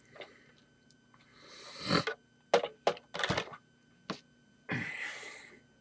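Hard plastic LEGO model being handled: a few sharp clicks and knocks in the middle, with rustling and scraping sweeps before and after as the pieces are moved.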